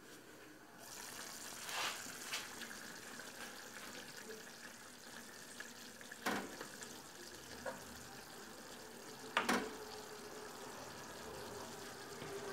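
Chopped onions frying in oil in a pan, a steady sizzle, as minced meat is added. A few sharp knocks stand out against the sizzle.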